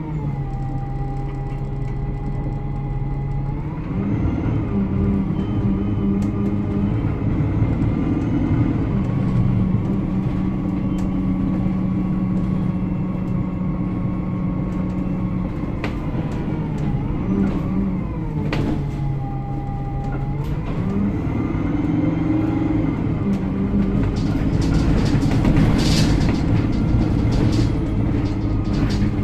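Interior sound of an Alexander Dennis Enviro 300 single-deck bus on the move. The diesel engine and transmission speed up and slow down several times under a thin steady whine, with a cluster of sharp high-pitched squeaks and rattles near the end.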